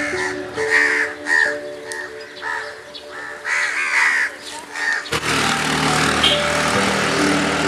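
A flock of crows cawing, with many short calls over background music. About five seconds in, the calls give way to a steady rushing noise.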